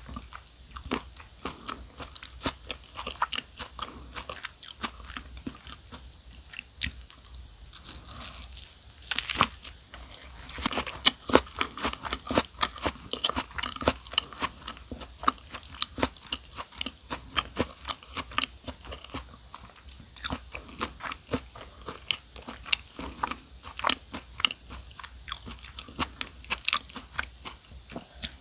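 Chewing and crunching of a club sandwich: soft white bread around crisp lettuce, apple, tomato, ham and ricotta. A fresh bite comes about nine seconds in, followed by a denser run of crunching.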